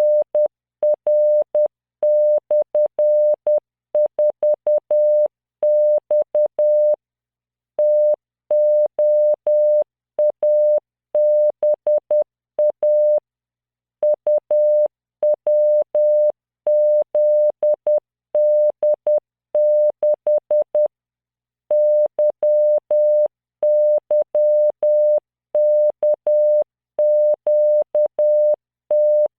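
Morse code sent by the LearningMorse training program as a 600 Hz tone at 10 words per minute: dots and dashes of a single steady pitch keying random five-character groups of letters, figures and punctuation, with a pause of about a second between groups.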